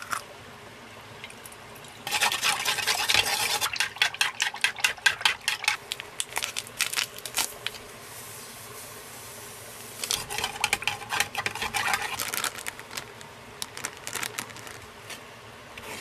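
Ingredients being stirred in a bowl for bread dough: two spells of quick, irregular clicking and scraping, the first lasting about five seconds and the second about three.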